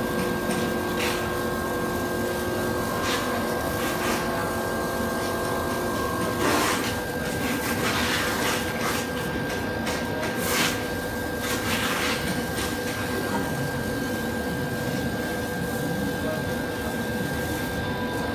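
Richpeace laser cutting machine running: a steady hum with a high whine. A set of lower tones drops out about six and a half seconds in, and a few short clicks and rustles are scattered through.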